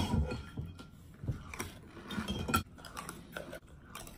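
Metal spoons clinking and scraping in bowls of cereal and milk: a series of short, irregular clinks, busiest in the first half.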